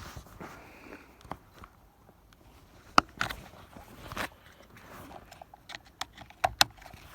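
Hands handling a car ignition switch and its plug: a few sharp plastic clicks and small rattles, with a quick run of little ticks a little before the end.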